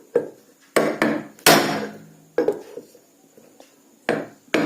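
Sharp metal-on-metal blows, about seven in irregular succession, each with a short ring. A screwdriver is being struck to drive the old 6202 ball bearing out of a ceiling fan motor's housing.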